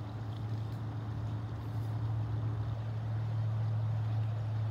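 Steady low motor hum that swells slightly toward the end, with a fainter higher tone alongside it that stops about halfway through.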